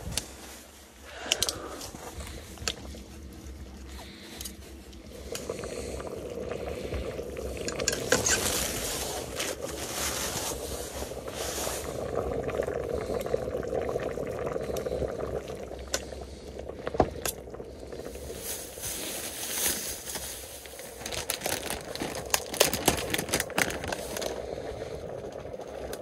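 Cooking at a pot of hot stew: utensils clinking and scraping against the metal pot, the contents bubbling, and packaging crinkling, with scattered sharp knocks throughout.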